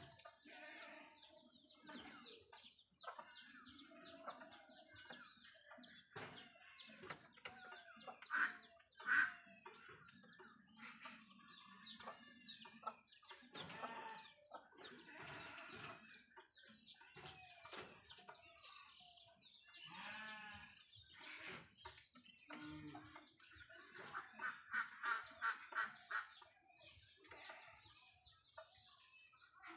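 Assorted bird calls, short chirps and clucking calls, with a fast run of repeated calls about three-quarters of the way through; low cooing sounds underneath at times.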